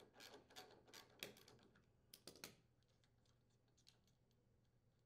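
Near silence, with a few faint small metal clicks and light scraping in the first couple of seconds as the loosened auger-pulley bolt is taken off by hand.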